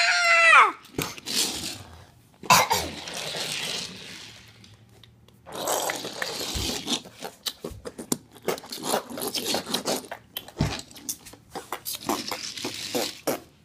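Handling noise from playing with small toy cars: many quick clicks, knocks and scrapes, with a stretch of hissing noise a few seconds in.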